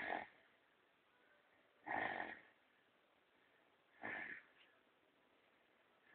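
Snoring: short rasping snores repeating about every two seconds, in time with the sleeper's breathing.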